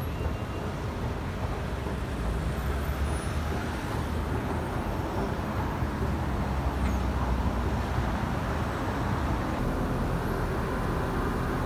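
Steady road traffic noise, a continuous low rumble with no distinct events.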